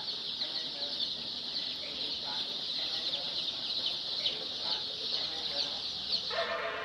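A large flock of chicks cheeping without pause, many short high peeps blending into one dense chorus. About six seconds in, a lower, steadier pitched sound joins the peeping.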